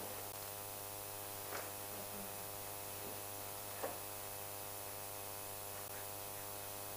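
Steady electrical mains hum with a buzz of many overtones and light hiss, with two faint brief sounds about a second and a half and four seconds in.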